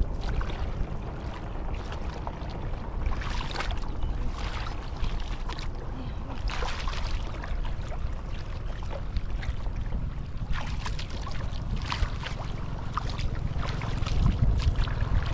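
Wind buffeting the microphone as a steady low rumble, with irregular wet splashes and squelches as hands and feet move through shallow floodwater and mud.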